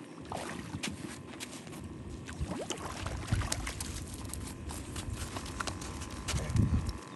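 A hooked speckled trout splashing in the shallows and then flopping and scraping on shelly sand as it is dragged ashore, with scattered clicks and ticks. Wind rumbles on the microphone throughout, gusting loudest near the end.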